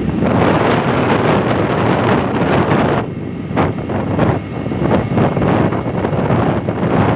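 Wind buffeting the microphone on a moving motorcycle, a loud gusting rush over the ride's road noise, easing briefly about three seconds in.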